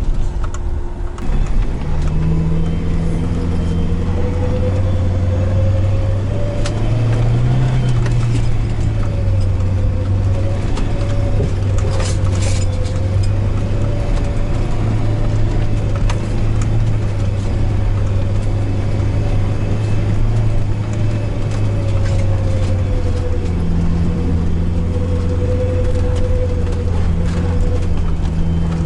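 Van engine and drivetrain running steadily under way: a continuous low drone with a thinner whine above it that wavers slightly in pitch.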